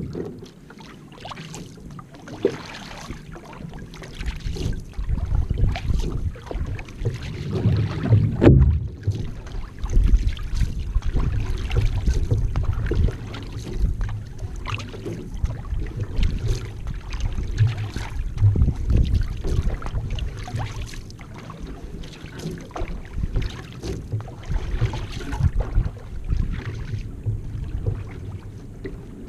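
Water splashing and rushing along the hull of a one-person outrigger canoe as it is paddled, each paddle stroke giving a short splash about once a second, over a low rumble of wind on the microphone.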